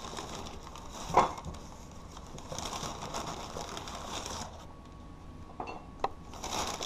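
Quiet room tone with faint handling sounds as fries are picked up from plates on a counter. A brief louder sound comes about a second in, and a sharp click about six seconds in.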